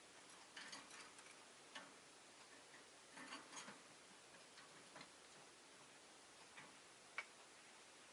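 Near silence: quiet room tone with faint, irregular small clicks and ticks, a short cluster about three seconds in and a sharper single click near the end.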